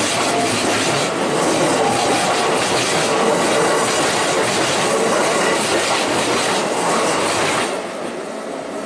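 Keikyu Line train passing close by, its wheels clattering over the rail joints with a faint squeal. The noise drops off suddenly near the end as the train clears.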